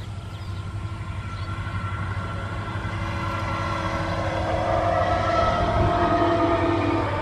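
Sonar Bangla Express diesel locomotive approaching, its engine rumble growing steadily louder, while a long multi-tone horn blast builds and cuts off just before the end.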